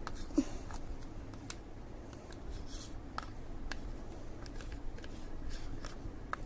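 Scattered light clicks and taps of hands handling slime and a small container, with a brief squeak about half a second in.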